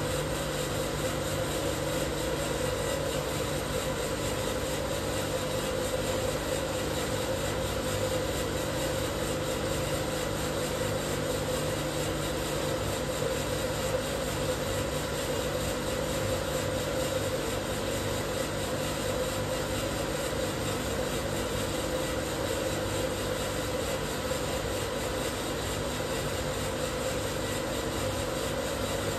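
Probat Probatone P12 Series 2 12 kg drum coffee roaster running mid-roast with a batch of beans in the drum: a steady mechanical drone with a low hum and a higher steady tone.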